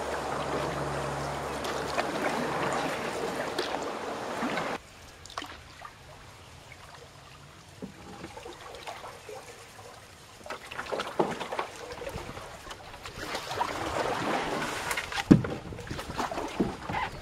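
Wooden canoe being paddled along a reedy river: a few seconds of dense rustling as it brushes along the reed bed, then, after an abrupt drop, quieter paddle splashes and trickling water with a few sharp knocks on the hull, the loudest near the end.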